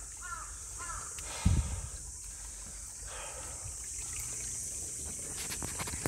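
Outdoor ambience in a wooded stream valley: a steady high hiss, with two short calls in the first second and a low thump on the microphone about one and a half seconds in. A few sharp clicks come near the end.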